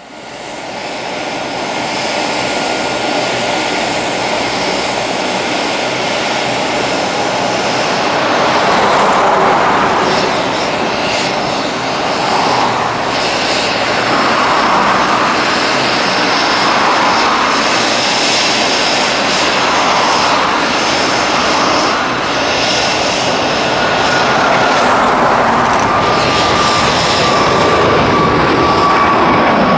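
Boeing 777F's twin GE90 turbofans at takeoff thrust: loud, steady jet engine noise that fades in at the start and swells and surges as the freighter lifts off and climbs. Near the end a fan whine slides slowly down in pitch as the aircraft passes overhead.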